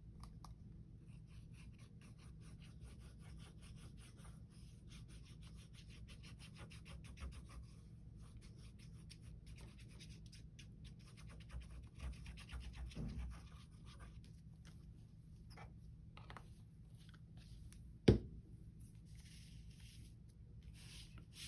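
Quick, repeated rubbing and scratching strokes on paper, dense for about the first half and sparser after, with one sharp knock near the end.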